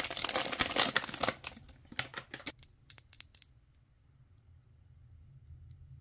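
Foil-lined plastic blind-box bag being torn open and crinkled, a dense crackle for about the first second and a half. It thins to a few separate sharp crinkles, then goes quiet about halfway through.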